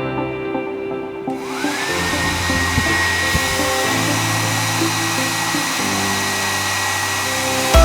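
RAKS Lia 1000 W travel hair dryer switched on about a second in. Its motor whine rises quickly and settles into a steady high tone over the rush of blown air. Background music plays underneath.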